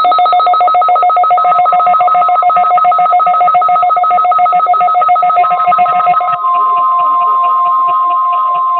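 Weather radio alert tones: a loud, rapidly pulsing two-tone beeping together with a steady single warning tone. The beeping eases off about six seconds in, leaving the steady tone, typical of the NOAA Weather Radio warning alarm tone, to carry on.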